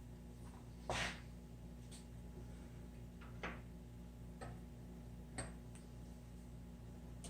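Faint, sharp metallic clicks at uneven intervals, about six of them with the loudest about a second in, as a Bridgeport mill is worked by hand to press a bushing into a transmission center support, over a steady low hum.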